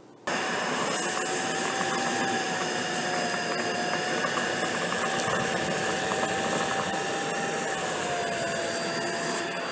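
Tineco PURE ONE S11 cordless stick vacuum running with its crevice tool, picking up chili flakes along a carpet edge. The steady motor whine starts abruptly and dips slightly in pitch near the end.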